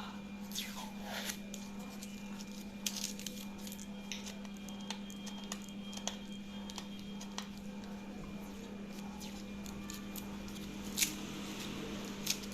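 A cardboard package sealed with cellophane tape being opened by hand, with scattered scrapes, crinkles and clicks of tape and cardboard, and a sharper click near the end. A steady low hum runs underneath.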